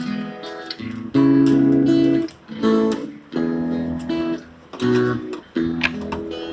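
Background guitar music: strummed and plucked chords that change every second or so.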